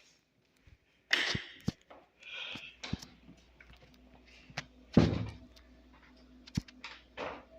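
Scattered knocks and clicks with a heavy thud about five seconds in, the loudest sound, over a faint steady hum that comes in a couple of seconds in.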